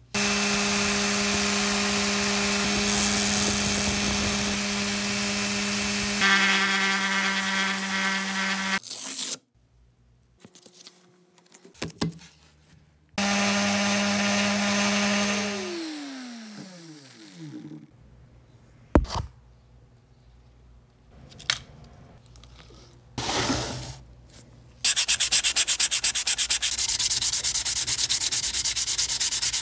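Random orbital sander with a 150-grit disc running on a small metal part. It stops about 9 s in, runs again briefly, then winds down with a falling whine. After a few clicks, hand sanding with sandpaper makes a fast, steady rubbing near the end.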